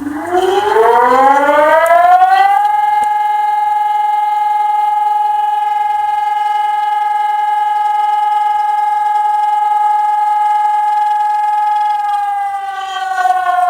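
FS 2400 siren sounding on test: its tone rises over about two and a half seconds to a steady high note, holds it, and starts to wind down about twelve seconds in.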